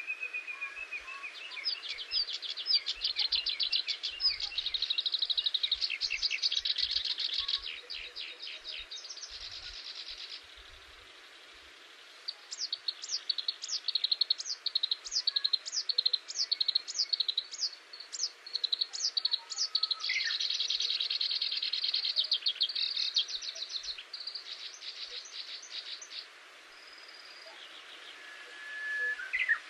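Songbirds singing in overlapping phrases: fast high trills, then a run of a dozen or so quick downward-sweeping notes at about two a second, then more trills, with a brief lull between phrases.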